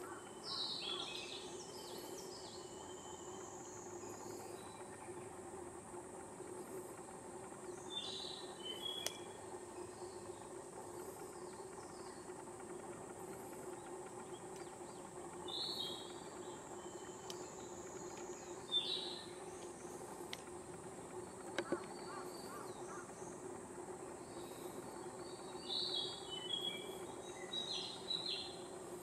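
Forest ambience: a steady high-pitched insect drone, with short bird calls coming and going every few seconds.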